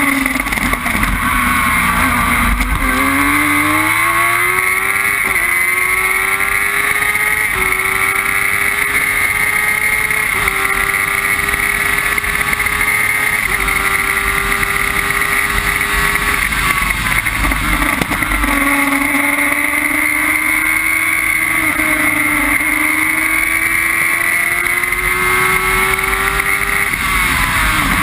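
Formula Jedi single-seater racing car's motorcycle engine at full throttle, heard from the cockpit. It pulls up through several quick upshifts, drops in pitch under braking and downshifts about 17 seconds in, then climbs steadily again before falling off near the end, with wind rushing over the car.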